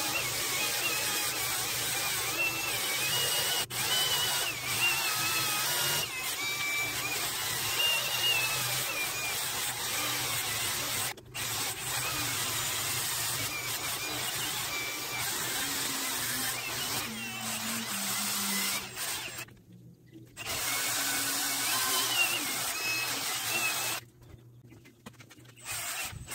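Cordless drill spinning a wire wheel against a string trimmer's metal drive shaft, wire-brushing the shaft before it is polished. The motor's whine wavers as the load changes. It stops briefly a few times, with the longest pauses near the end.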